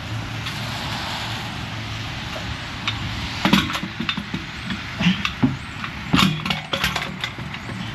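A vehicle engine running steadily under an even hiss. From about three and a half seconds in, a run of irregular knocks and clatters sounds over it.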